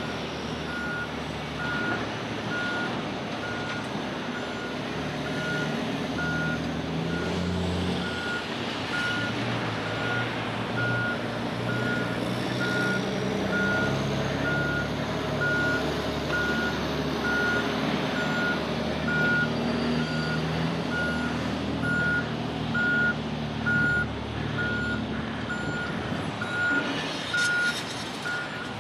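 Heavy construction vehicle's reversing alarm beeping steadily, about once a second, over the low rumble of a diesel engine working at a worksite.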